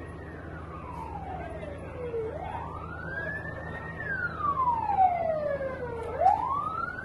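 Emergency vehicle siren wailing in slow sweeps, each rising for about two seconds and falling for about two seconds. It grows louder in the second half.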